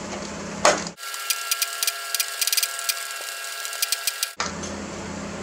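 Socket ratchet clicking rapidly as the starter's mounting bolts are run in: one click, then from about a second in a fast run of clicks that stops just past four seconds.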